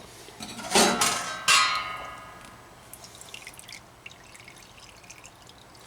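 Ultrasonic cleaner being handled: a knock a little under a second in, then a sharper one that rings on for about a second like a metal tank, with faint handling noise after.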